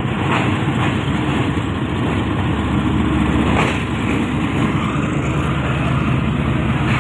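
Diesel locomotive of a passenger train running at the station with a steady low rumble, with a couple of faint clicks.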